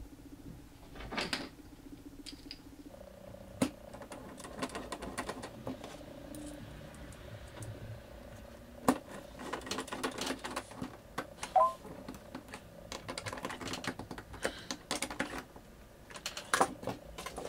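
Screws being driven by hand with a screwdriver through a wooden ukulele bridge into a cigar box lid: a run of small irregular clicks and knocks, with a short squeak about two-thirds of the way through.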